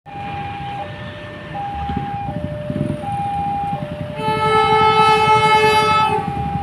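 Railway level-crossing alarm sounding its two-tone warning, high and low notes alternating about every three-quarters of a second, signalling an approaching train with the road closed. About four seconds in, an approaching diesel locomotive's horn sounds one long blast of about two seconds, the loudest sound, over the low rumble of waiting traffic.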